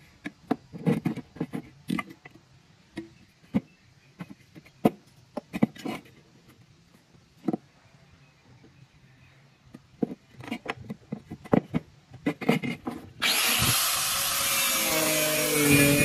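A steel scriber scratching marking lines onto a thin square steel pipe against a metal ruler: a scatter of short scrapes and taps. About thirteen seconds in, an angle grinder's cutting disc cuts in suddenly on the pipe, a loud steady grind with a wavering pitch.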